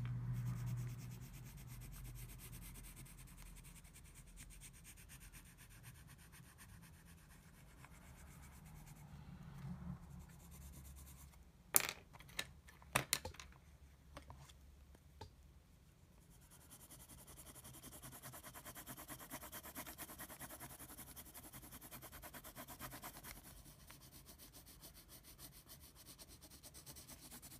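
A graphite pencil shading on notebook paper: a faint scratching rub of repeated pencil strokes, heavier in a stretch past the middle. A few sharp clicks come about halfway through.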